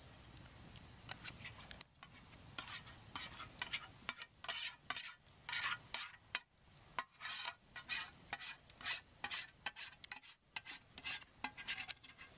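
Spoons scraping and clinking in bowls of heated stew and chicken and dressing, in quick irregular strokes that grow busier after about four seconds.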